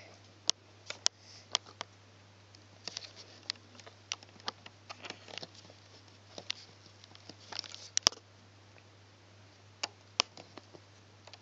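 Scattered small clicks and taps of hands and a plastic hook working rubber bands over the plastic pegs of a Fun Loom, with one sharper click about eight seconds in. A low steady hum lies underneath.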